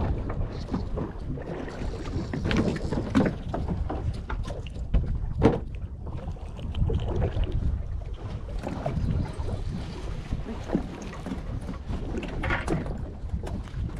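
Wind on the microphone and water slapping against a small boat's hull, a steady low rumble broken by scattered knocks and splashes, the sharpest about five and a half seconds in.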